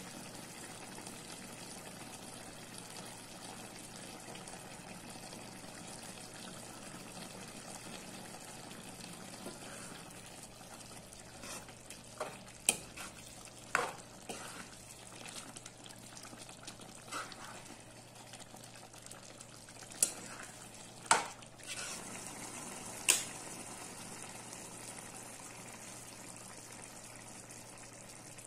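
Chicken and spinach curry simmering in an open pan: a steady bubbling hiss, broken by a few sharp clicks or pops in the middle part.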